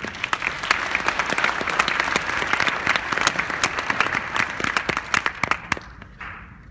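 Audience applauding, many hands clapping at once, dying away about six seconds in.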